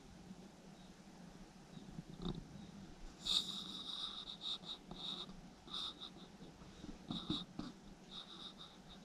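Raccoons eating from food bowls: a run of irregular, short eating noises begins about three seconds in, with a couple of sharper clicks.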